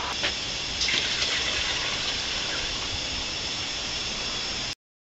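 Steady hiss of a gas cooker burner running under a water-bath canner as the water heats toward a boil, with a few faint knocks about a second in. The sound cuts off suddenly near the end.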